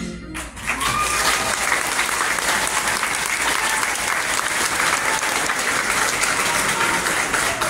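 Large audience clapping, starting about half a second in after a brief lull, with a whoop or two near the start.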